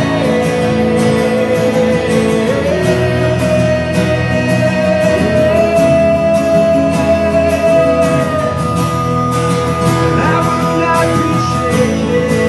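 Two acoustic guitars strummed in a steady rhythm under long held sung notes, a live worship song.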